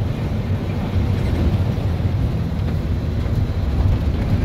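A car driving, heard from inside the cabin: engine and road noise make a steady low drone.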